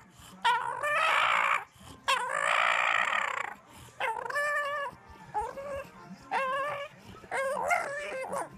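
English bulldog whining and moaning in a run of drawn-out, wavering calls. Two long moans of about a second each come first, then a string of shorter whines.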